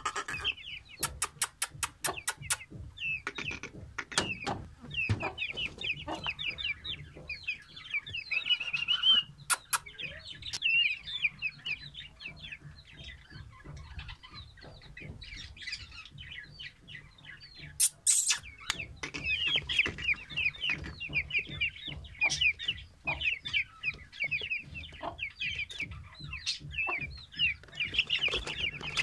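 Young Aseel–Shamo cross chickens peeping continuously, many short, high, falling calls overlapping, with scattered sharp knocks.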